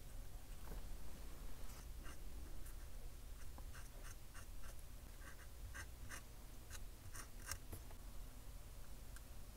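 Faint, irregular small clicks and scratches of hand tools working on a circuit board while a surface-mount capacitor is fitted, over a steady low hum.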